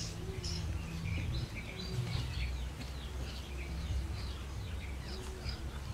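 Small birds chirping, many short high chirps following one another irregularly, over a steady low rumble.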